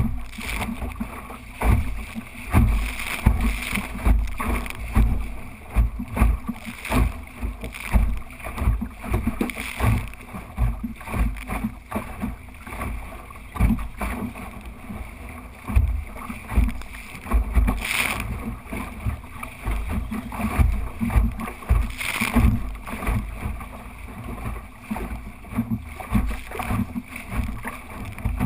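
Wind rumbling unevenly on the microphone of a small sailing dinghy, with water washing along the hull, and two sharper bursts about two-thirds of the way through.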